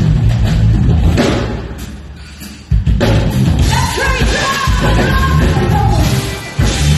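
Live funk band playing with drums, bass and guitar. The music falls away for about a second and a half, then the full band comes back in together and a woman's voice starts singing. Near the end there is another short drop before the band hits back in.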